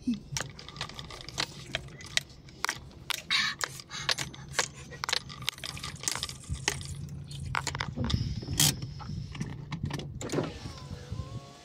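Irregular clicks and rattles, some quick and close together, over a steady low hum.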